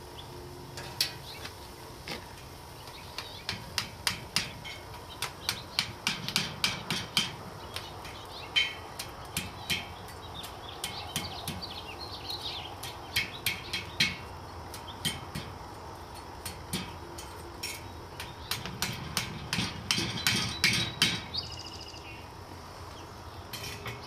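Light metallic taps and clinks in quick, irregular runs of several a second, each one short and sharp, with pauses between the runs. It fits a hammer or metal tool tapping on the bottle-cap bar at the forge.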